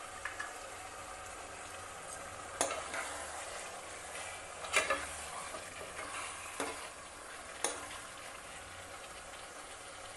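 Chicken pieces in a thick red chilli masala sizzling in a pot while being stirred, the spatula knocking and scraping against the pot about five times.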